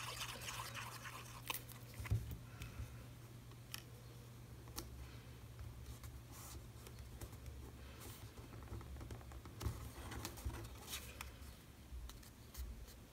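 Quiet handling of cardstock: at first the tip of a liquid glue pen rubbing on paper, then small paper die cuts being laid down and pressed together on a craft mat. It comes through as light, scattered taps and soft rustles.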